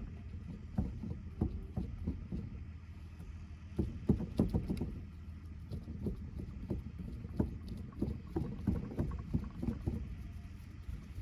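Irregular knocks, dabs and rubbing strokes from a paint roller working a wet fibre coating onto a roof, with several louder knocks about four to five seconds in.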